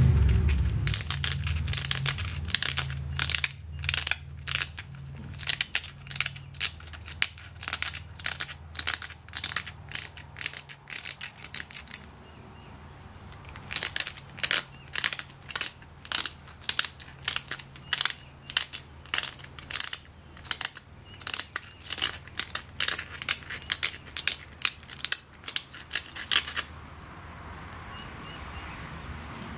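Granite grinding stone scraped in short, rasping strokes along the edge of a Texas tabular chert preform, about two strokes a second, knocking the edge down to set up a bevel for pressure flaking. The scraping pauses for about two seconds near the middle and stops a few seconds before the end.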